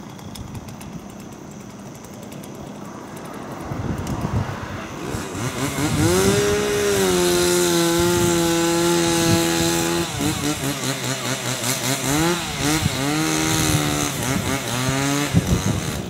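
Chainsaw revving up to full throttle and cutting into the base of a standing log, its pitch holding high and sagging slightly under load. After the first cut it drops back, revs up and down several times, and falls away just before the end.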